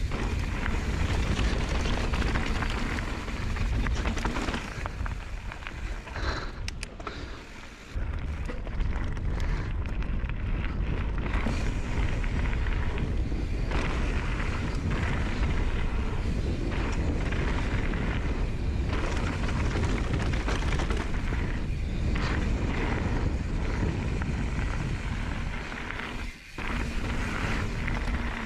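Mountain bike riding fast down a loose gravel and slate trail: a steady rush of wind buffeting the microphone over the tyres' rumble and crunch on stones. It eases for a few seconds before surging back sharply, and drops briefly near the end.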